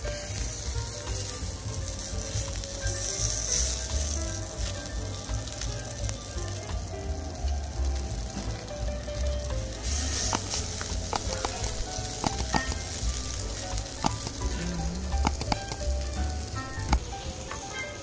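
Beef katsu sizzling on a hot black plate over a small tabletop brazier: a steady hiss, with scattered light clicks in the second half.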